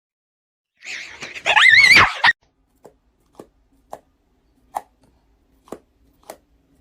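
A loud animal call with a trembling, wavering pitch, lasting about a second and a half. It is followed by about six short, sharp taps spaced roughly half a second apart.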